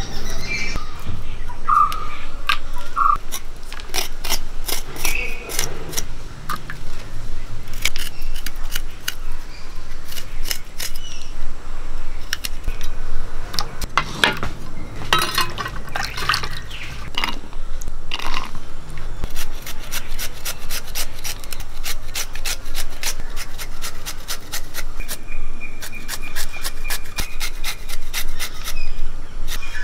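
Knife scraping and cutting as garlic and ginger are peeled and sliced by hand, with small splashes as the pieces drop into a clay bowl of water. Sharp cutting clicks run throughout and come fast and close together in the last third.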